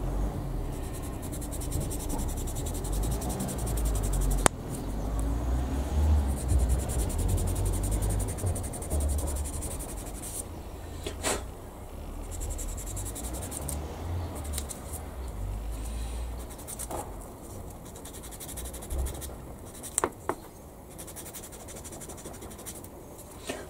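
Light, fast scraping of a hand tool along a plastic scale-model gun barrel as its moulding seam line is cleaned off. Handling bumps and a few sharp clicks sound, the clicks about a third of the way in and near the end.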